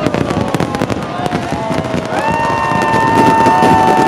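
A fireworks display with shells bursting and crackling in rapid succession. From about halfway through, a held whistling tone sounds over them.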